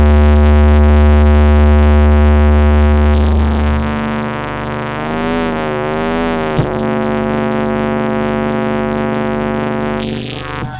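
Sustained electronic synthesizer drone with a heavy sub-bass for the first four seconds. Its pitch wavers in the middle, then it holds steady and cuts off near the end.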